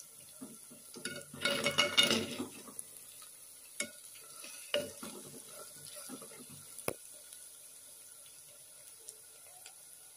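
A steel spoon stirring fresh pigeon peas and onions in a clay pot, with a burst of scraping and clatter about a second and a half in, then a few single clinks of the spoon against the pot. A faint sizzle of frying lies underneath.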